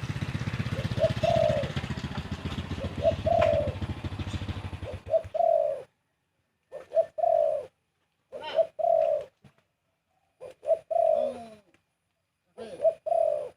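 Spotted dove cooing: a phrase of two short coos and a longer rolling coo, repeated about every two seconds. A steady low rumbling noise underneath cuts off suddenly about six seconds in, leaving the coos with silence between them.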